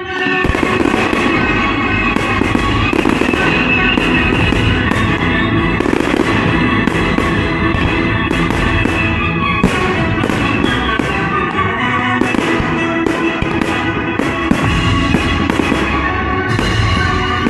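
Aerial fireworks bursting in a rapid, irregular string of sharp bangs, starting with a sudden loud barrage, while classical music plays underneath.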